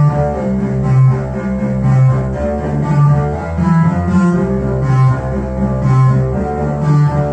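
Synthesizer music from Behringer MS-1 and Pro-1 analogue synths played through a Behringer Virtualizer Pro DSP2024P effects processor: a run of low bass notes, each held about half a second to a second, with shorter higher notes sequencing above.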